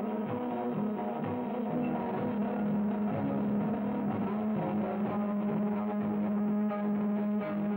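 Electric guitar played in a loose, improvised rock jam over a steady low droning note that swells after a couple of seconds, with irregular low thumps underneath.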